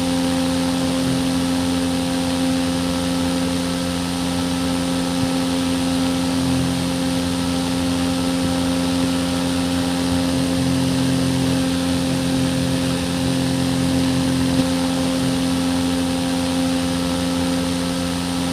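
A small motor running at a steady speed, giving a constant hum with a fixed pitch.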